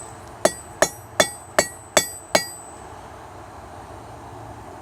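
Hammer blows on a welding-heat titanium bar on the anvil: six quick, ringing strikes, about two and a half a second, stopping about halfway through. These are the blows setting an attempted forge weld in the titanium.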